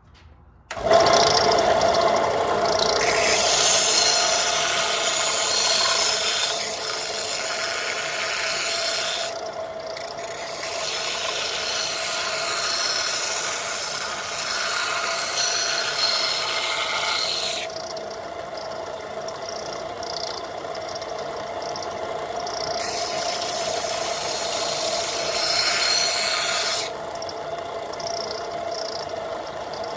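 A power tool grinding the edge of a steel saw-blade axe head to sharpen it: a steady whine under a harsh rasping noise that eases and returns every few seconds.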